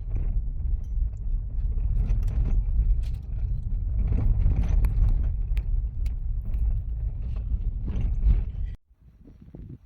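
Kia Picanto driving on a gravel road: a loud, steady low rumble from the tyres and road, with small stones clicking and ticking against the car. It cuts off suddenly near the end.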